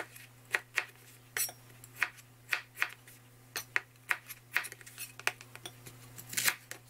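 Chef's knife chopping raw potato into small cubes on a cutting board: a string of sharp, short knocks as the blade strikes the board, about two a second at an uneven pace.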